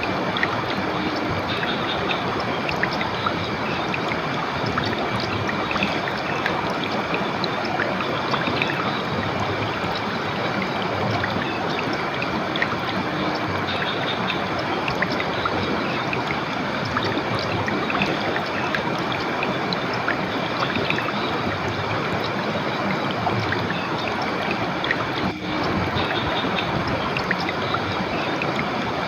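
River water flowing steadily, a continuous even rush of moving water.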